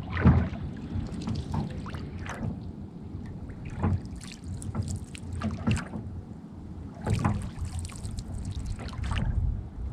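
Small rowboat moving on a pond: irregular knocks and water splashes over a low rumble of wind on the microphone.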